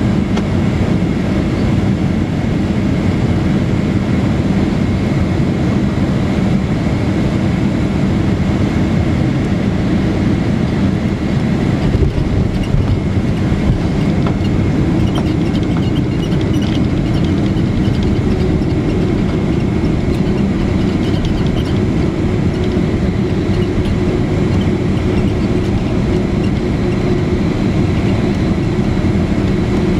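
Steady engine and airflow roar of a Boeing 767-300ER heard inside the passenger cabin on final approach, with a brief thump about twelve seconds in.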